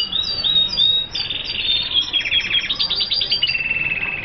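Red siskin singing a fast, varied song of high twittering trills, each run of rapidly repeated notes switching to another note type.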